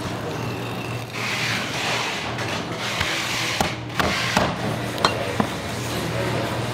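A knife working a salmon on a plastic cutting board: a rough scraping for a couple of seconds, then several sharp knocks and clicks against the board, over a steady low hum.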